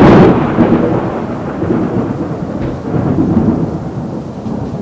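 Thunder rumbling and fading away over a few seconds after a loud clap, with heavy rain falling on wet pavement.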